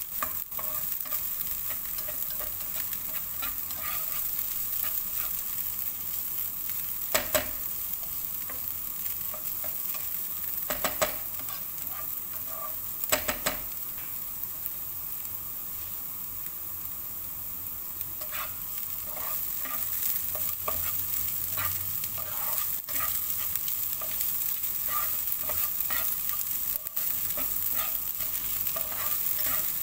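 Diced onion sizzling in olive oil in a frying pan as it softens, stirred with a utensil that scrapes and clicks against the pan. Three louder clacks of the utensil come in the first half, and quicker, lighter scraping strokes follow in the second half.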